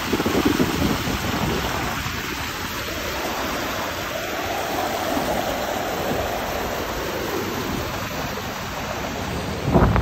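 Small waves washing and splashing over shoreline rocks, with wind buffeting the microphone in gusts, strongest near the end.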